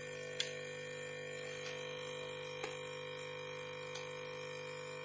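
A steady hum with four faint, short clicks, from a part being fitted into a fingerprint slap scanner during reassembly.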